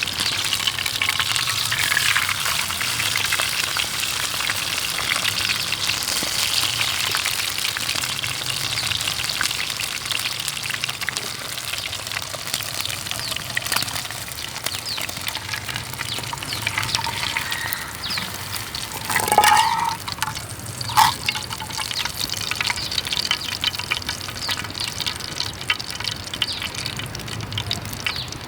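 Food sizzling and crackling in a hot frying pan, the crackle easing off a little over time, with two brief louder knocks about two-thirds of the way through.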